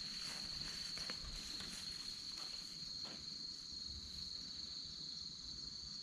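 Steady, high-pitched chirring of an outdoor insect chorus, with a couple of faint rustles in the grass.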